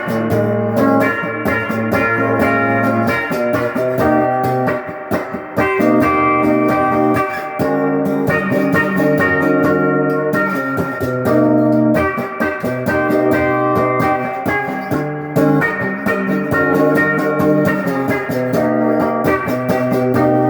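Electric guitar, a Les Paul-style copy on its stock bridge pickup, played through an amp: sustained chords and notes, with the chord changing about every four seconds.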